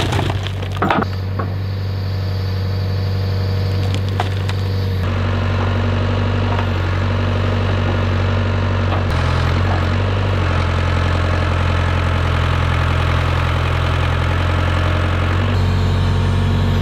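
Backhoe engine running steadily while its bucket dumps and pushes dirt and rocks onto a dirt bike, with sharp cracks and clatter of falling soil and stones near the start.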